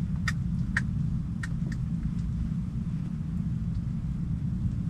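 Four sharp clicks in the first two seconds from the controls of a small portable propane heater being worked by hand, over a steady low rumble.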